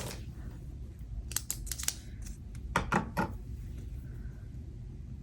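Paper and sticker handling on a planner page. A quick run of small clicks and rustles comes about a second in, then two louder strokes about three seconds in.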